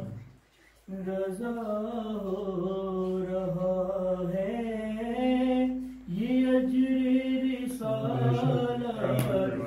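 A man's voice reciting a manqabat unaccompanied, singing long held notes that glide slowly up and down in a devotional melody, with a short pause about a second in and another near six seconds.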